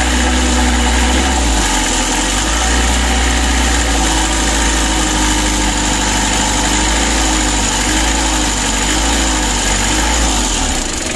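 Mitsubishi L300 four-cylinder diesel engine running steadily at idle, with the hand throttle at the injection pump. The running is rough and growling ('ngorok'), the complaint being shown alongside a lumpy, too-low idle.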